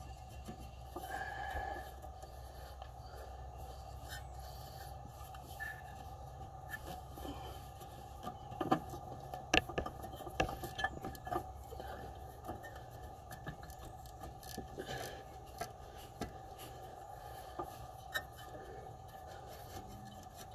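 Faint rubbing and scattered light clicks and knocks of hands working a rubber hose back onto its fitting among metal engine brackets, with a few sharper knocks about nine to eleven seconds in.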